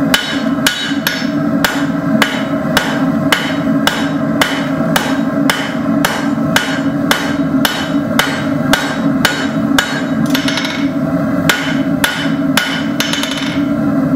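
Blacksmith's hand hammer striking a hot 5/16-inch steel rod on an anvil in a steady rhythm, about two blows a second.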